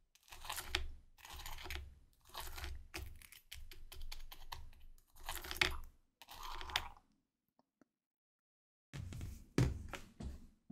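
Crispy baked baguette crunching in a run of short crackly bursts, with a pause of about two seconds before more crunches near the end.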